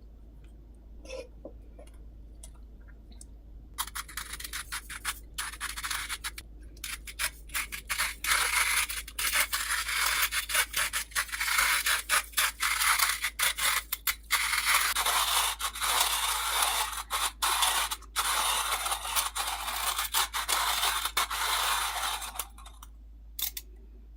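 Manual coffee grinder being hand-cranked, grinding coffee beans: a continuous crunchy scraping with many short breaks, starting about four seconds in and stopping shortly before the end.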